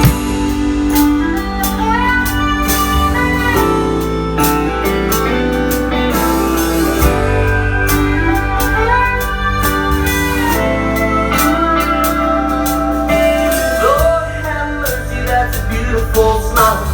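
Instrumental intro of a country song: a steel guitar playing gliding lines over guitars, bass and a steady drum beat.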